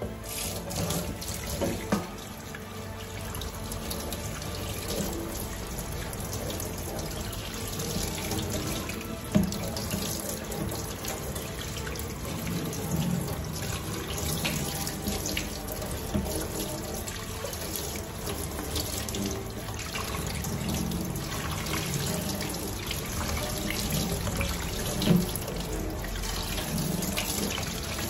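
Kitchen tap running steadily into a stainless steel sink, the water splashing over vegetables being rinsed in a plastic colander, with a few brief knocks about 2, 9 and 25 seconds in.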